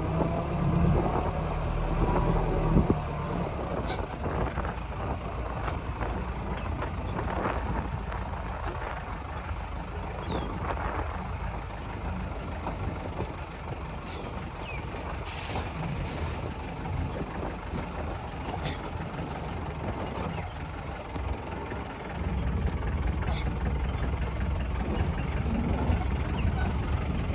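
Off-road jeep's engine running on a rough trail, louder in the first few seconds and again near the end, with a quieter stretch in between.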